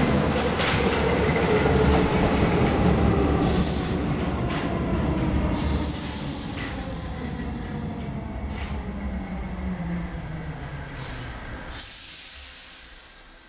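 Paris Métro line 12 MF67 train slowing down: its motor whine falls steadily in pitch and the running noise fades as it slows, with brief squeals and a hiss near the end.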